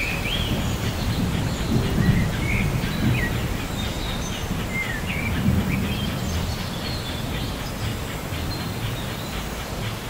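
Light rain with a steady low rumble beneath it, and birds chirping in short gliding calls every second or so.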